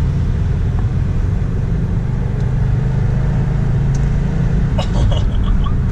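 Subaru Impreza WRX STi sedan's turbocharged flat-four engine and tyre noise heard from inside the cabin while driving: a steady low drone.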